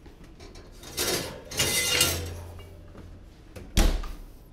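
A 12-inch cast iron skillet scraped out across the metal oven rack, with a brief metallic ringing, then the oven door shut with a single thud near the end.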